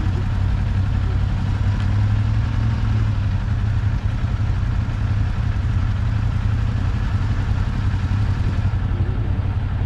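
Motorcycle engine idling steadily at a standstill, a low even drone.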